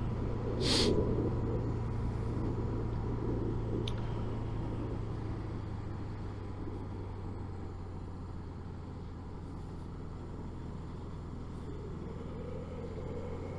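Suzuki GSX750's inline-four engine running steadily under way, mixed with the rush of wind noise inside the motorcycle helmet. There is a short hiss about a second in, and the sound eases a little through the middle.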